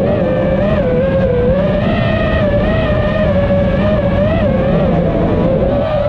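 Brushless motors of an iFlight Nazgul5 five-inch FPV quadcopter whining in flight, the pitch wavering up and down as the throttle changes. Underneath is a steady low rumble of wind on the microphone.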